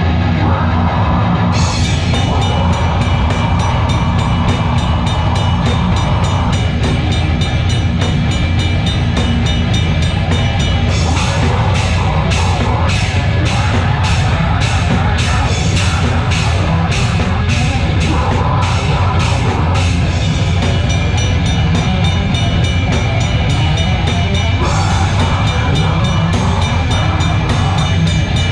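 A live heavy metal band playing loud, with a heavy low end and fast, even drumming; the cymbals come in about a second and a half in.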